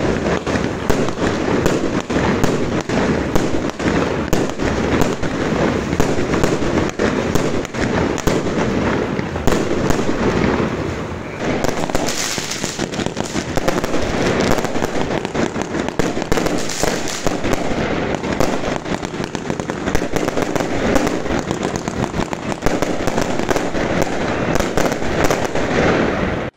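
Fireworks and firecrackers going off all around without a break: a dense, continuous crackle of many bangs, some overlapping.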